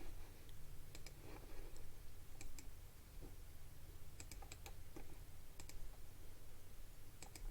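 Scattered, irregular clicks of a computer keyboard and mouse being worked, over a faint steady low hum.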